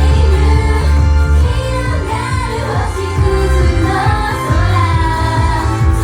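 Japanese idol pop song performed live: female voices singing over a backing track with a heavy bass line.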